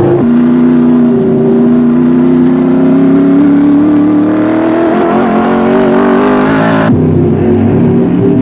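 Racing car engine under acceleration, its note rising steadily for several seconds, then changing abruptly near the end.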